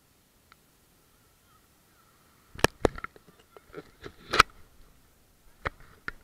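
Handling knocks on a camera sitting in shallow water as it is picked up and tipped over: a quick run of sharp clicks and knocks about two and a half seconds in, and two more near the end, after a nearly silent start.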